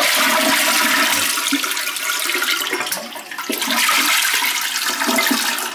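A Sterling toilet flushing: a steady rush of water swirling down the bowl, easing off sharply near the end.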